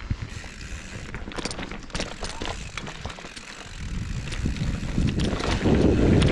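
Mountain bike riding down a dirt singletrack: tyres rolling over dirt and stones, with frequent clicks and rattles from the bike. The rolling noise and rumble grow louder from about four seconds in as the speed picks up.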